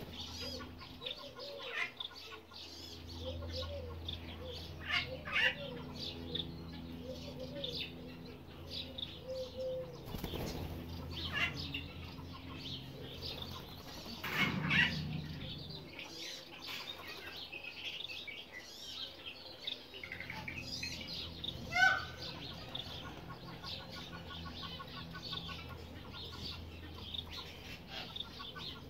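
Wood duck ducklings peeping over and over in short, high calls, with a few louder bird calls or wing flaps standing out about halfway through and again near the end.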